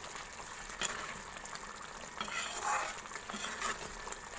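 Kofta curry gravy simmering and sizzling in a metal pan while a steel ladle stirs it, a steady hiss with a few clicks and scrapes of the ladle against the pan.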